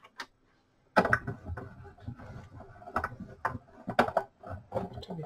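Sizzix Big Shot die-cutting machine being hand-cranked, the plate sandwich grinding through the rollers with an irregular run of clicks and knocks that starts about a second in. The die is cutting foam rubber, which goes through with more difficulty.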